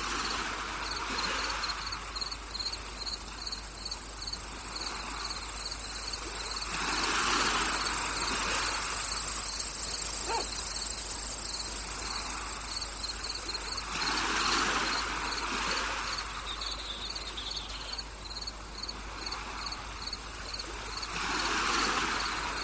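Crickets and other insects chirping: a steady high trill with a regular pulse of chirps, about two or three a second. Behind them, a soft whooshing swell rises and falls about every seven seconds.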